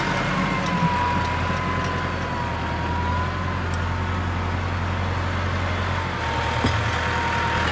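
Farm tractor's diesel engine running steadily under load as it pulls on a tow strap, a low drone with a steady high whine over it. A light knock or two sounds from the strained hitch.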